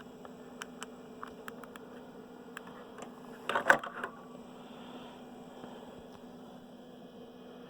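Steady faint hum of running computer equipment, with scattered light clicks and a short cluster of louder clicks and knocks about three and a half seconds in, from hands working the machine.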